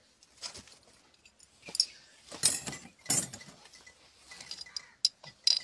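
Thin metal wire tool tapping and scraping inside a glass bottle, a scattered series of clinks, the loudest about two and a half and three seconds in.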